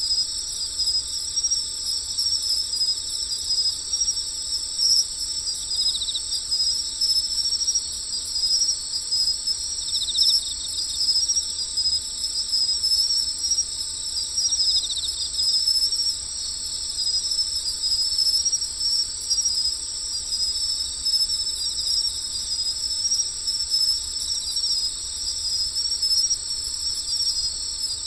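Chorus of crickets and other insects: a steady, high chirring that never lets up, with short pulsing trills standing out three times.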